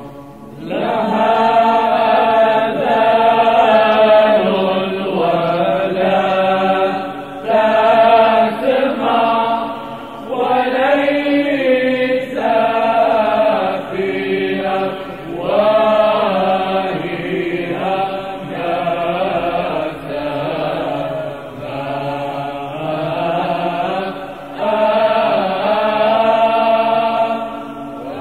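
Arabic Byzantine Orthodox church chant: chanters sing a slow, ornamented Christmas matins hymn over a steady low held drone (ison), phrase by phrase with short breaks between. The sound of an old tape recording, dull with the top end cut off.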